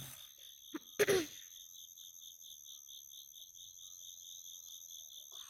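Insects chirping in a steady high pulsing rhythm, about five chirps a second, over a continuous high drone. A short vocal sound, like a cough or brief grunt, comes about a second in.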